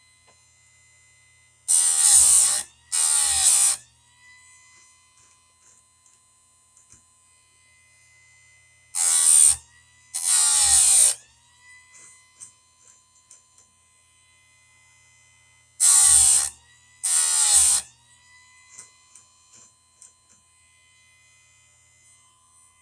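Electric chainsaw chain sharpener's grinding wheel grinding chain cutter teeth: three pairs of short grinds, each about a second long and several seconds apart, with a faint motor hum between them.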